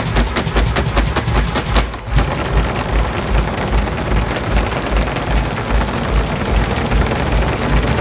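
Flamenco footwork (zapateado): rapid heel and toe strikes, about six a second, breaking after about two seconds into a dense continuous roll like a machine gun, over music with a heavy bass beat.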